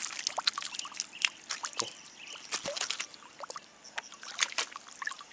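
Water splashing and dripping as a mesh keep net full of caught tilapia is moved in the shallow canal water: irregular small splashes and drips.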